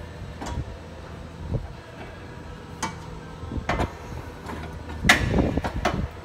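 Knocks and clatter of a metal charge air cooler being handled and worked into its mounts: a few scattered sharp knocks, the loudest about five seconds in, followed by a short scraping rattle.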